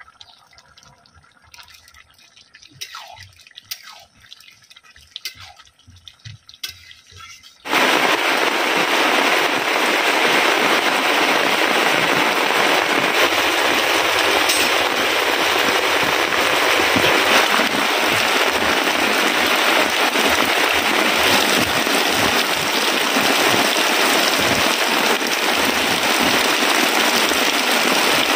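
Faint scattered clicks and drips for about eight seconds, then heavy rain cuts in suddenly as a loud, steady downpour hiss that carries on.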